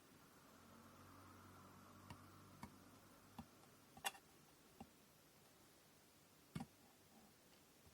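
Scattered light clicks and taps from handling kumihimo braiding tools and thread, about six over several seconds, the sharpest about four seconds in. A faint hum runs through the first three seconds.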